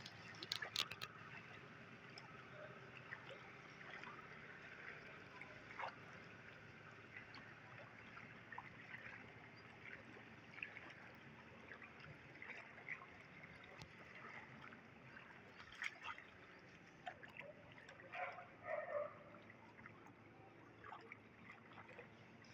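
Faint floodwater sloshing and trickling, with scattered small splashes and a few louder ones about 18 to 19 seconds in.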